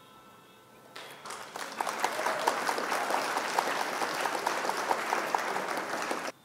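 Recorded applause sound effect, many hands clapping. It swells in about a second in and cuts off abruptly near the end, marking the correct answer being revealed.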